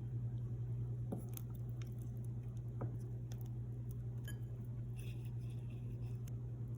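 Sticky mochi dough being worked by hand, with soft irregular squishes and a few light clicks over a steady low hum.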